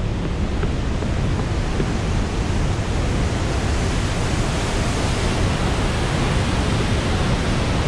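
Steady roar of the flooded Orange River pouring over Augrabies Falls, a continuous rushing noise that grows a little louder and brighter about halfway through.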